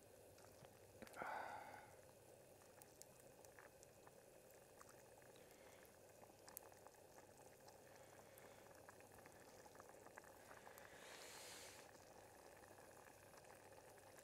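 Faint wood campfire crackling with small scattered clicks, under a pot of thukpa noodle soup simmering on the grate. A soft ladling sound comes about a second in and a brief hiss near the end.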